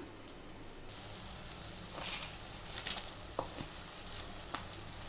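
Mushroom masala sizzling in a hot pressure cooker as soaked basmati rice is poured in, with a few light crackles. The hiss brightens about a second in.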